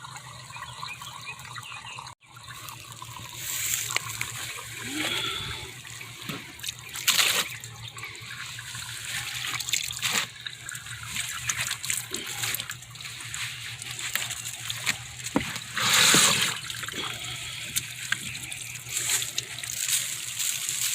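Water trickling and splashing in the tub of a small plastic portable washing machine as wet clothes are handled, with a few louder splashes.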